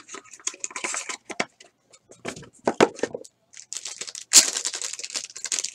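Hands handling small cardboard trading-card boxes and a card in a plastic holder: a string of clicks, taps and rustles, with a louder scraping rustle about four seconds in.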